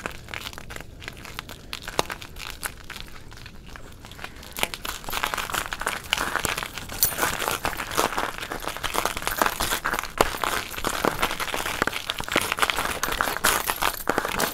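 Dense, irregular crunching and crackling from a bicycle being ridden over snow and ice, mixed with the rustle of a handheld camera rubbing against clothing. It grows louder about four seconds in.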